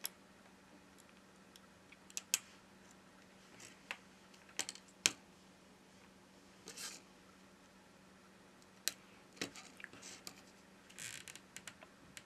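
Scattered small clicks and taps, with a couple of brief scraping rustles, as small HTC U11 phone parts are handled and fitted onto the mainboard, over a faint steady hum.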